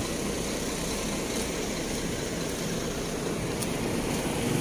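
Heavy truck's diesel engine running steadily, heard from inside the cab.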